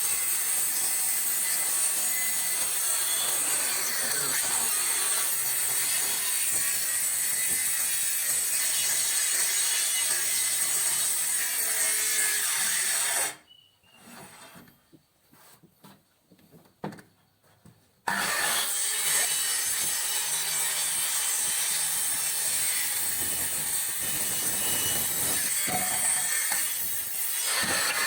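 Handheld power cutter fitted with a circular saw blade, cutting wood with a steady high hiss. It stops about halfway through, leaving a few seconds of quiet with a few light knocks, then starts cutting again.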